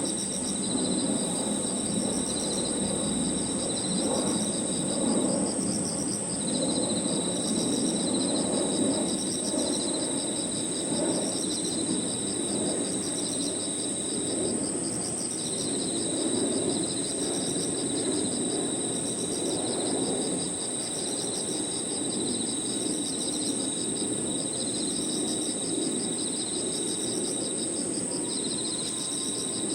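Crickets and other grass insects chirping together: one unbroken high-pitched trill, with lower pulsing trills that pause briefly twice. A steady low background rumble lies under them.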